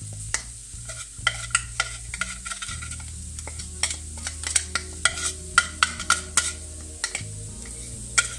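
Shrimp sizzling gently in a stainless steel frying pan while a spoon scrapes and taps against a container, spooning chopped parsley and garlic into the pan, with many short clicks.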